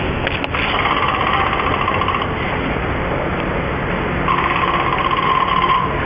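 Recording of a man snoring, played back through a small portable stereo speaker: two long rasping snore breaths, one starting about half a second in and the other about four seconds in, over a steady noisy background.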